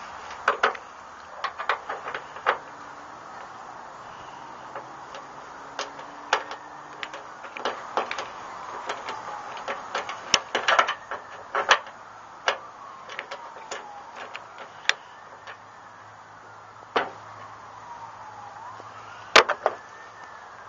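Irregular sharp metallic clicks and taps of a folding key set fitted into a bolt on a pickup's steel tailgate and being turned by hand. A faint tone slowly glides up and down in the background.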